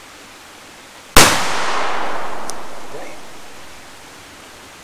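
Tripwire flashbang alarm going off about a second in: one sharp, very loud bang, then a hiss that fades away over about two and a half seconds.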